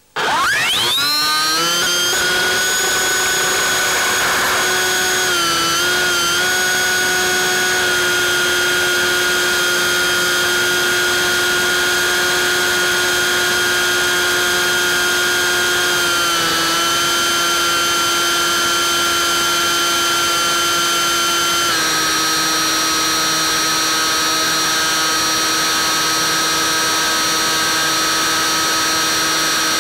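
Bixler 3's electric pusher motor and propeller: a whine that rises quickly as the throttle comes up for launch, then holds a steady pitch in flight. It dips briefly about six and about sixteen seconds in, and drops to a slightly lower pitch about twenty-two seconds in as the throttle is eased back.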